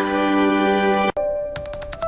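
Background music: a held, steady chord that cuts off about a second in, followed near the end by a quick clicking beat with a thin held note.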